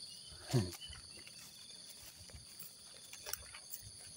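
Steady high-pitched drone of insects in the countryside. About half a second in comes one short, loud sound with falling pitch, like a brief voice, and a few faint clicks follow.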